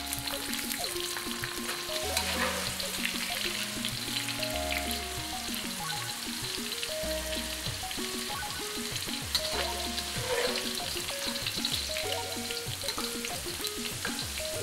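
Green beans deep-frying in hot oil in a carbon-steel wok: a steady crackling sizzle throughout, the first deep-fry stage of dry-fried string beans. Background music with a bass line plays underneath.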